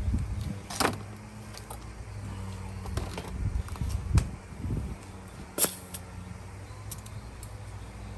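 Scattered sharp clicks and a few dull knocks over a steady low hum, irregular rather than rhythmic: hand tools and compression-gauge fittings being handled between cylinder tests, not the engine cranking.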